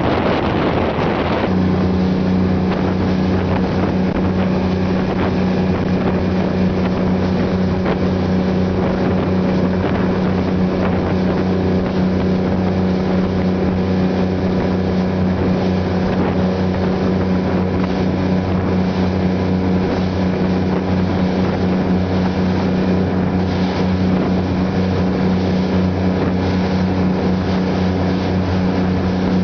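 Large speedboat's engines running steadily at speed: a constant low drone with the rush of wind and water. The first second and a half is wind buffeting the microphone before the engine drone takes over.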